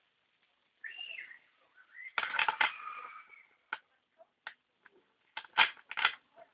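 Small neodymium magnet balls (NeoCube) clicking and snapping together as they are fitted into a ring. There is a burst of clicks about two seconds in, then single sharp clicks over the last few seconds.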